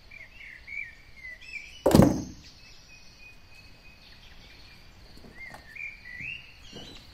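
A single loud thump about two seconds in as toys are handled and put down, with a softer knock near the end. Birds chirp faintly in the background.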